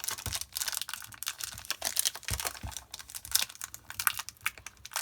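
Foil Yu-Gi-Oh booster pack wrapper crinkling and tearing as it is worked open by hand, a rapid run of crackles and rustles.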